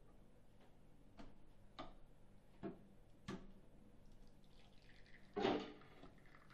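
Espresso machine with a faint steady hum, coffee dripping: four separate drips about half a second to a second apart, then a louder short splash-like clatter about five seconds in.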